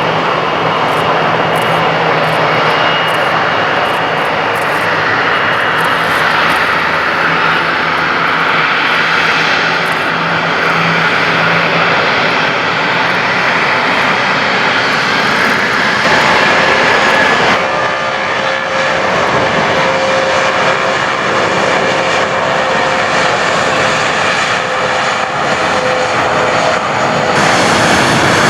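Airliner engines running, a loud steady rushing noise with a high whine in it. The tone of the noise shifts about two-thirds of the way through.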